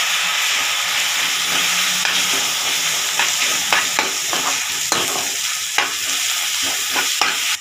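Onions and green chillies sizzling in oil in a metal kadai as chopped tomatoes go in. From about a second and a half in, a metal spoon stirs them, scraping and knocking against the pan again and again over the steady sizzle.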